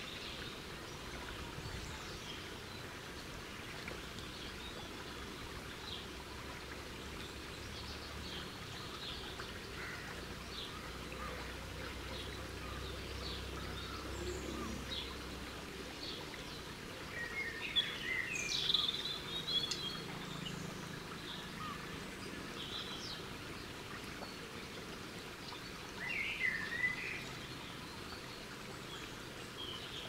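Garden birds singing and calling over a steady background hiss, with short chirps throughout, a louder burst of song a little past halfway and another near the end.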